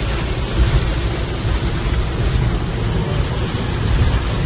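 Heavy typhoon rain on a moving car, with tyre noise on the flooded road, heard from inside the cabin as a steady rush over a strong low rumble.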